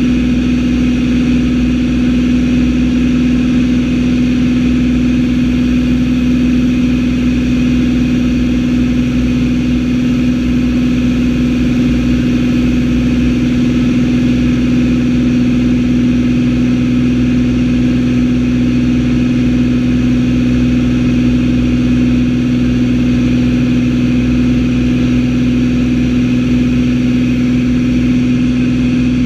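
Single-engine propeller plane's engine and propeller running steadily in flight, heard inside the cockpit as a constant drone with a strong low hum.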